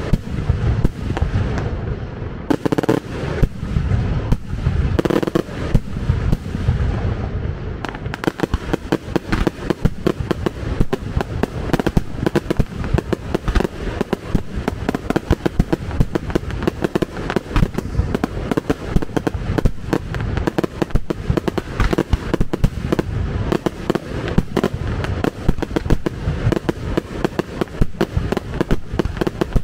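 Fireworks display: a dense barrage of bangs and crackling. The first several seconds carry heavier, spaced booms; from about eight seconds in the explosions come in a rapid, almost continuous string.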